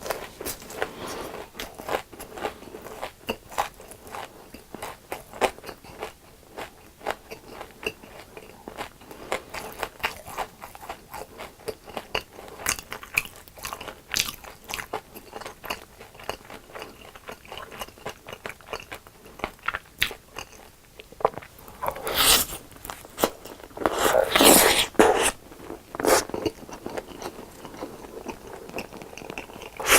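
Close-miked crunching and chewing of deep-fried food, breaded cutlet, fried shrimp or fries, with many sharp crackly crunches. A few louder, longer crunches come in the last third.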